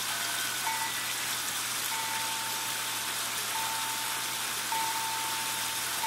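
Steady splashing and trickling of falling water in a garden pond. A thin, steady high tone comes and goes several times over it.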